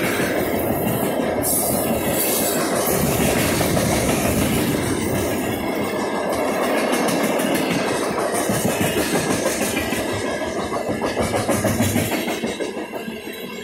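Freight train cars rolling past: a steady rumble of steel wheels on rail with a rhythmic clickety-clack over the rail joints, easing off near the end.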